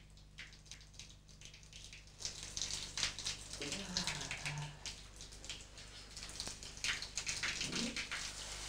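Shower turned on: water spraying and splashing, starting about two seconds in and growing louder.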